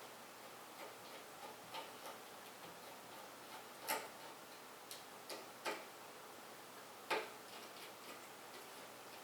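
Faint, irregular clicks and taps of a screwdriver and small parts being handled while something is unscrewed and removed, with three sharper clicks about four, five and a half and seven seconds in.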